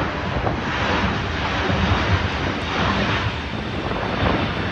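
Emirates Airbus A380's four jet engines passing low overhead under power as the airliner climbs away on a go-around: a steady rush of jet noise.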